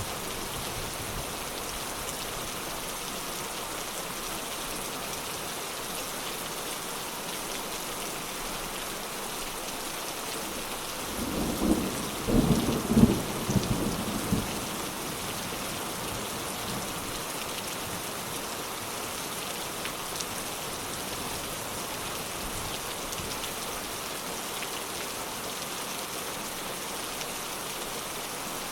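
Steady rain falling, an even hiss of drops. Roughly halfway through, a rumble of thunder rolls for about three seconds.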